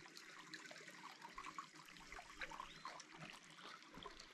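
Faint trickle and lap of water in an artesian hot-water tub.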